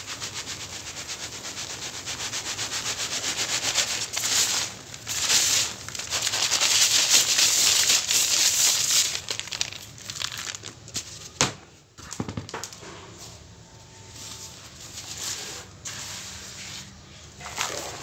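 Dry cement powder and small lumps shaken through a plastic colander and pouring into a plastic basin: a dense, rhythmic rattling hiss, loudest in the first half, then softer sprinkling with a couple of sharp knocks around the middle.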